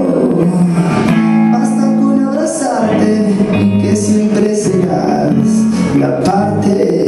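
Live band music: a song played on electric guitar with drums and percussion.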